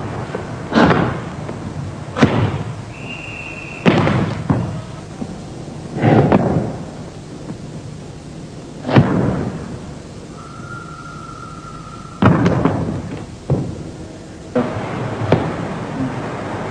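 Bajiquan strikes and take-downs on a training partner: about nine sharp hit sounds, one every one to three seconds, each dying away quickly. Two short steady tones sound between the hits, one high and brief, the other lower and held for about a second and a half.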